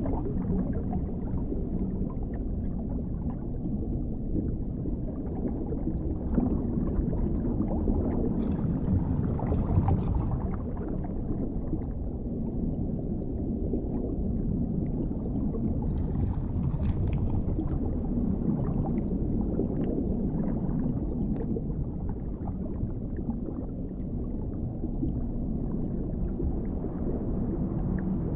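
Dark underwater ambience: a deep, steady low rumble, with faint clicks now and then.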